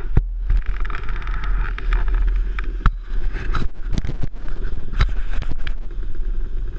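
Action camera being handled and turned around: repeated sharp knocks and rubbing against the mount over a steady low rumble.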